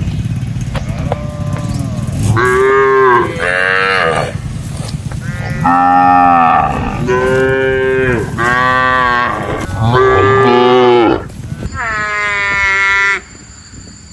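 Cattle mooing over and over: about seven drawn-out calls of roughly a second each, some following close on one another.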